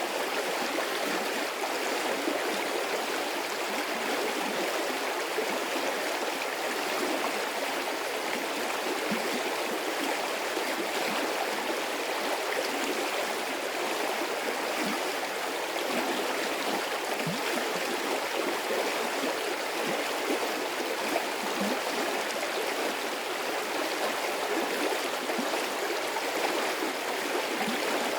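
Medium-sized stream of water flowing and rushing steadily, a dense even splashing with no pauses.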